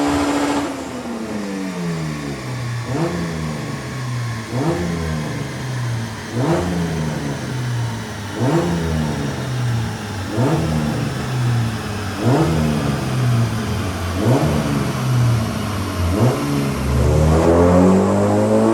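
K-swapped Honda Civic's K20 four-cylinder engine being revved in short blips about every two seconds, dropping back between them. Near the end the revs climb steadily.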